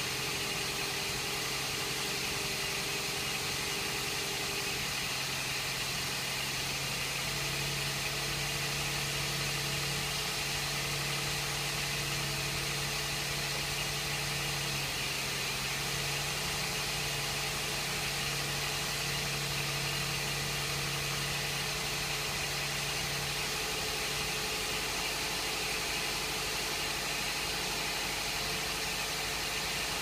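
Toyota Echo's 1.5-litre four-cylinder engine idling steadily, with a strong, even hiss like rushing air over the engine hum. The owner cannot place the hiss and doubts that the intake alone could be that loud.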